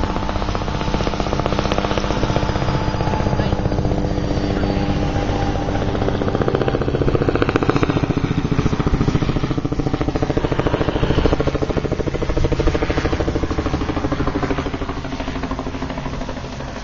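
Medical helicopter flying in overhead on approach to land: the rotor's rapid, even blade thudding over the turbine's drone. It is loudest about halfway through and eases off near the end.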